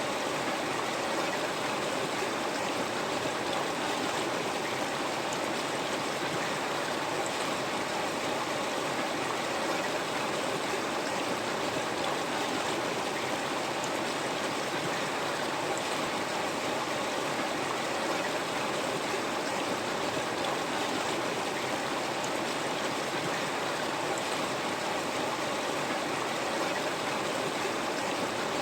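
River water flowing and splashing over rocks, a steady rushing with a few faint drips and splashes on top.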